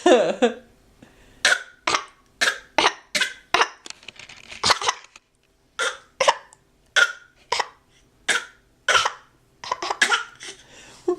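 A small child giving a long string of short, forced fake coughs, about two a second, with a brief pause around the middle. It opens with a short vocal sound that falls in pitch.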